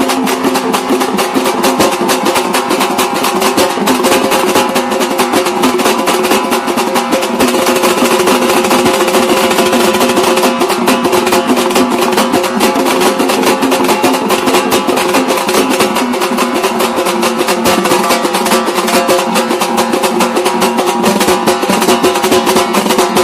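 Background music: fast, dense drumming over sustained melodic tones.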